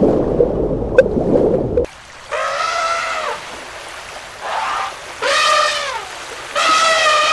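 Splashing water for about two seconds, which stops abruptly. Then an animal gives four drawn-out calls, each rising and then falling in pitch and lasting about a second; the second is fainter.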